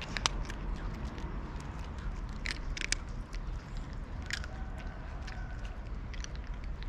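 Cats chewing dry kibble close to the microphone: irregular sharp crunches, the loudest a moment in, around the middle and a little after.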